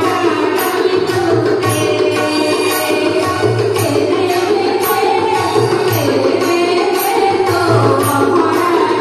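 Indian devotional bhajan music, mostly instrumental: drums in the manner of a tabla and a steady beat of bright metallic strikes, about two a second, under a melodic line.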